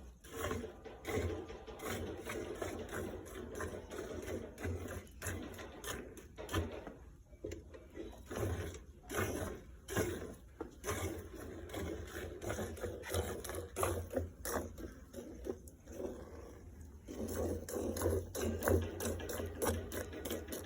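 A cow being milked: a quick, even rhythm of short strokes, about two to three a second, over a low steady hum.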